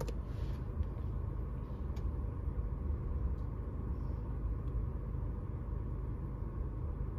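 Steady low vehicle rumble heard inside a car, with a few faint clicks.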